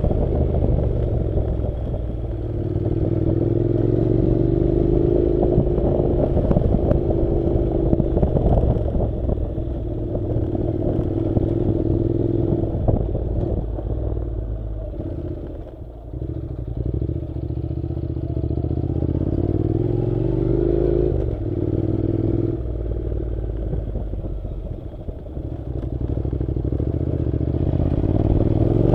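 Honda NC700's parallel-twin engine running as the motorcycle climbs a rough dirt road, its pitch rising and falling with the throttle, with a clear dip about halfway through. Clattering from the loose, rough surface runs alongside.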